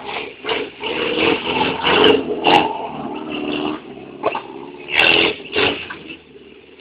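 Subaru car being driven hard, its engine revving unevenly under a string of irregular knocks and bangs, loudest about two and five seconds in.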